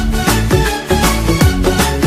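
Instrumental break of a Hindi birthday song, with a steady beat, held synth tones and quick falling bass-drum notes; no singing.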